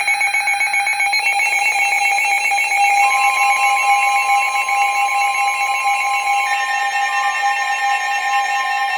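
NOAA Weather Radio alert tones: a loud, continuous electronic alarm, rapidly pulsing at first, joined about three seconds in by a second, higher steady tone. It is the alert that heralds a newly issued warning being broadcast.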